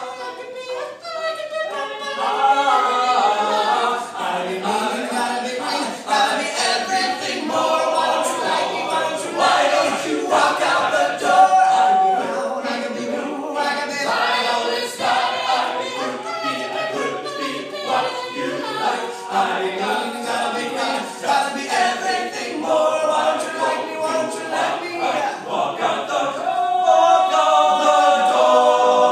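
All-male a cappella group singing in harmony, several voices together without instruments, growing louder near the end.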